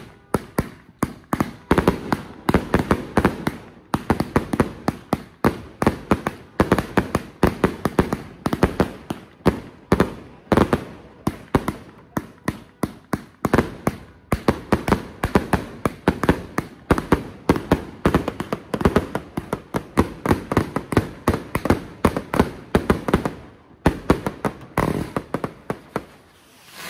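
Consumer fireworks going off in a dense barrage of sharp bangs, several a second, with a brief lull near the end.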